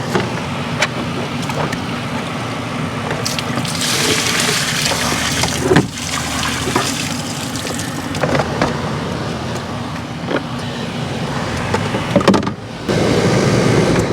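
Water being poured and splashed out of a full container, with knocks and clatter from handling it; the pouring is strongest about four to six seconds in.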